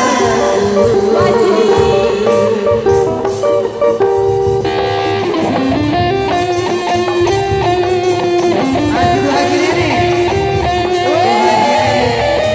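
Loud procession music: held melody notes over a steady drum beat, with notes that slide up and down in pitch near the start and near the end, and a brighter layer joining about four and a half seconds in.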